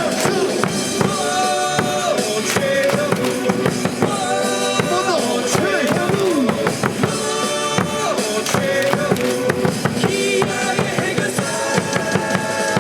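Baseball stadium cheer music with a drum-kit beat and a melody line, playing continuously for a team cheer.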